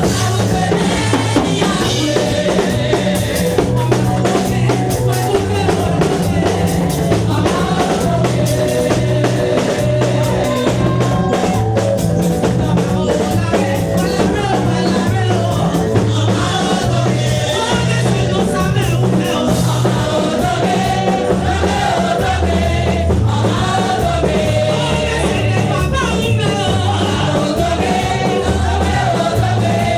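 Choir singing over a band accompaniment, with a drum kit keeping a steady beat and a moving bass line.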